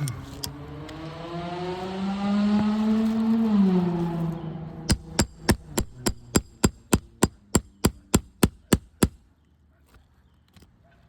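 An engine revving, its pitch climbing slowly and then dropping off just before halfway. Then a roofing hammer strikes metal in a fast even series, about fifteen blows at roughly three a second, as nails are worked loose from shingles.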